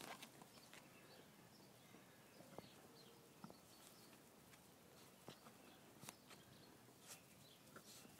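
Near silence: faint outdoor ambience with a few soft scattered taps and faint high chirps.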